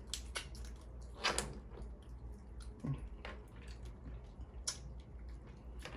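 Wet, close-up eating sounds of sauce-covered Dungeness crab: scattered soft clicks, squelches and smacks of chewing, with a few louder ones.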